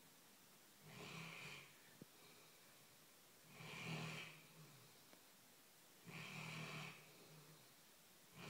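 A dog snoring in its sleep: one snore roughly every two and a half seconds, three in all, with a fourth beginning at the very end.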